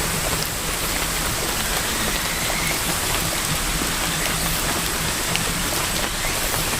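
Steady rain falling: a dense, even hiss with scattered individual drop taps.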